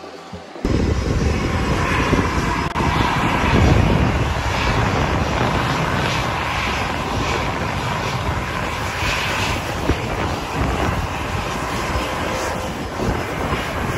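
A large airliner's engines running loud and steady, cutting in abruptly about half a second in, with a whining tone over a deep rumble.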